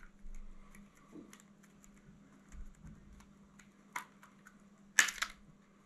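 Small plastic clicks and taps of a car's spoiler brake-light housing being handled and taken apart. There is a louder click about four seconds in and a short crackle near the end.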